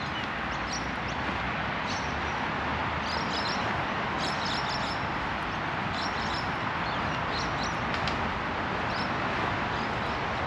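Steady hum of road traffic, with short, high bird chirps coming in quick clusters every second or so.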